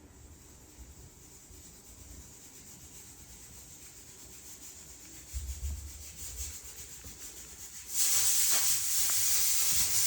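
A faint, steady hiss with some low rumbling about five seconds in. About eight seconds in, a much louder, high-pitched hiss of noise takes over.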